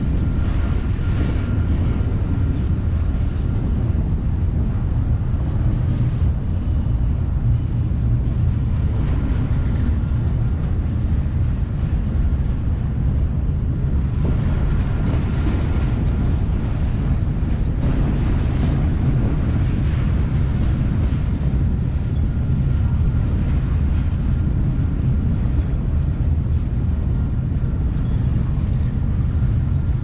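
Double-stack intermodal train's well cars rolling past at speed, a steady low rumble of steel wheels on rail.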